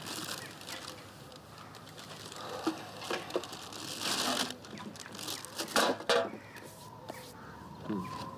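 A plastic carrier bag rustling and crinkling on and off as hands rummage in it.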